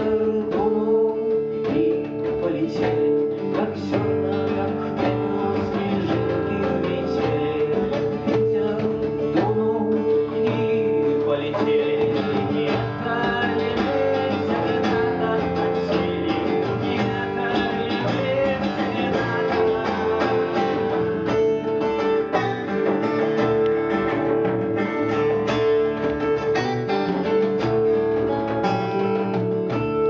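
Live acoustic guitar song: a guitar strummed and plucked, with a man singing at times and a steady drone note underneath.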